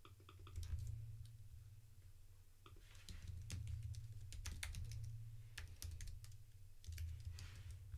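Typing on a computer keyboard: faint, irregular keystrokes over a low steady hum.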